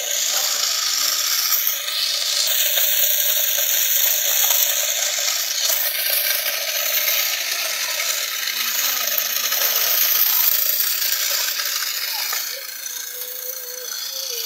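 Homemade miniature threshing machine running on a small electric motor, its toothed drum rattling and clattering steadily as grain goes through. It drops a little in loudness near the end.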